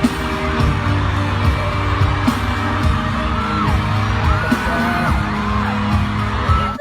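Pop music with a steady beat and bass line, with a melodic line gliding in pitch in the second half.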